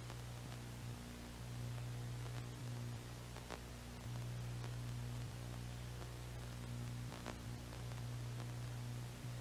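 Low, steady electrical hum with faint hiss and a few faint clicks, the hum stepping slightly louder and softer in stretches.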